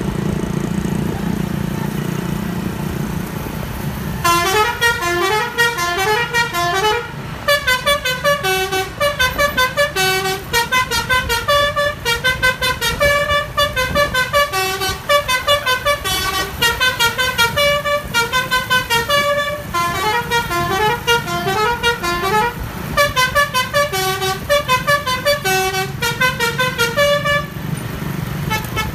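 Basuri telolet musical horn on an intercity bus playing a fast melody of short stepping notes in repeating phrases, starting about four seconds in and stopping shortly before the end, over the low rumble of the passing bus engine.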